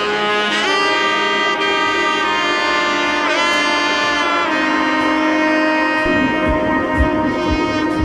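Background music: a sustained melodic lead line of held notes with pitch slides, joined by a steady drum beat of about two thumps a second from about six seconds in.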